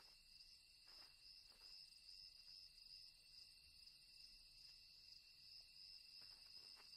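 Faint night ambience of crickets: a steady, unbroken high trill, with a few soft ticks.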